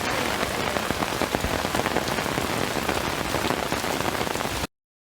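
Heavy rain falling, a dense patter of drops with scattered sharper strikes, cutting off suddenly near the end.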